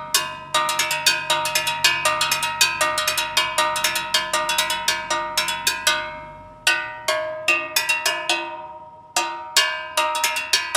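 A metal gas cylinder on the back of a gas delivery truck, struck in a fast rhythmic pattern so that it rings like a bell. This is the gas vendor's call announcing that he is passing, and each vendor has his own recognisable rhythm. A dense run of strikes slows after about six seconds into sparser beats, with the ring hanging on after the last one.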